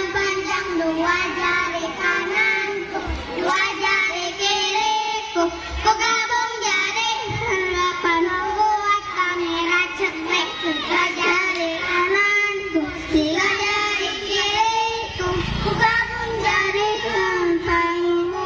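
A group of young children singing a song together over backing music.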